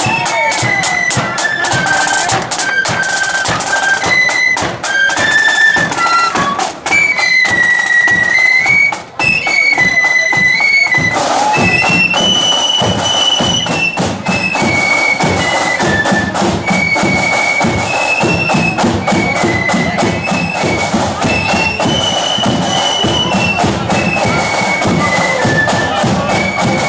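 Marching flute band playing a march tune: a melody on flutes over steady beating from a rank of side drums.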